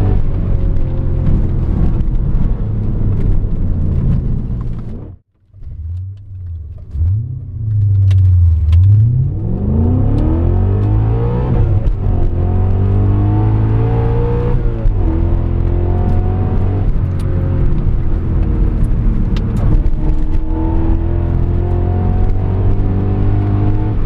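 BMW M5 E39's 4.9-litre V8 engine heard from inside the cabin while driving, running steadily at first, cutting out briefly about five seconds in. It then revs up with the pitch rising as the car accelerates, and settles into a steady drone with small shifts in pitch.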